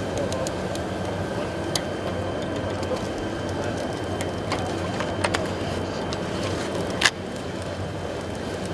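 KUPER FWM 630 veneer splicing machine running with a steady hum and a thin steady whine, with a few sharp clicks. A louder click comes about seven seconds in, after which the running sound is a little quieter.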